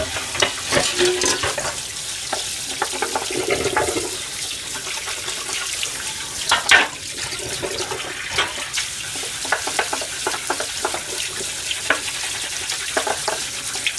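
Tap water running into a stainless-steel kitchen sink while a frying pan and bowls are scrubbed and rinsed by hand. Dishes knock and clatter against each other and the sink throughout, with one louder clatter about halfway through.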